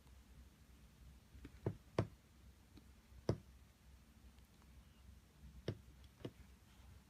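Five short, sharp clicks spread over a few seconds against a quiet room with a faint low hum.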